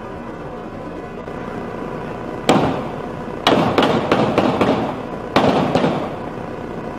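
Gunfire: a single shot, then a rapid volley of about seven shots, then three more, each with a short echo.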